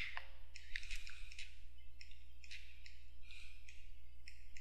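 Faint, irregular clicks and scrapes of a computer mouse being clicked and dragged, over a steady low hum.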